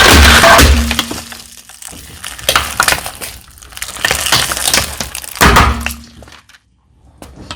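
Brittle objects cracking and crunching as a car tyre crushes them: a loud burst of breaking right at the start, then several more crunches over the next few seconds.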